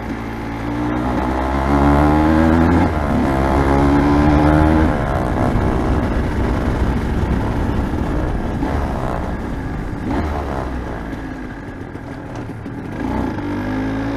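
Aprilia RS 125's single-cylinder two-stroke engine accelerating under load, its pitch climbing, dipping briefly about three seconds in as it shifts up, then climbing again until the throttle is closed about five seconds in. It then runs lower under wind noise and picks up again near the end.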